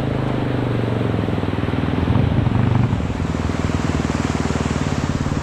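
Small motorcycle engine running steadily under way, its note holding even and briefly a little louder about two seconds in.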